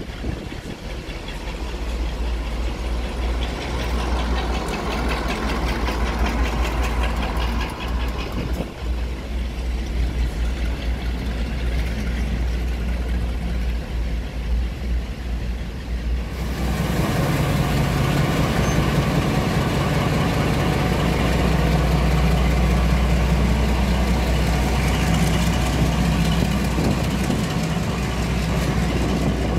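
Diesel locomotive engine running steadily as the locomotive moves beyond the platform. About 16 s in the sound changes abruptly to the closer, louder, steady low running of Class 42 Warship D821's twin Maybach diesel engines.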